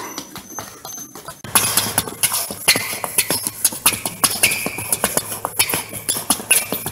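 Rapid footsteps of sneakers tapping a hard floor during a quick agility-ladder footwork drill, many light taps a second, getting louder about a second and a half in, over a steady low hum.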